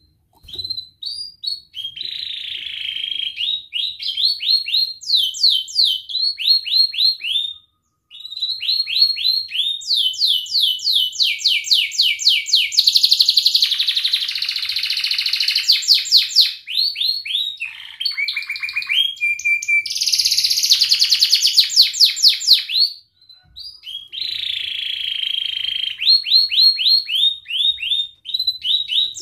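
Domestic canary singing a long song of rapid repeated notes and rolling trills, high-pitched, broken by short pauses about 8 seconds in and again about 23 seconds in.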